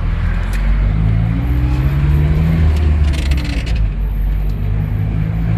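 Engine of a GAZelle route minibus running under way, heard from inside the cabin, its pitch rising and falling with the driving. A brief rattle about three seconds in.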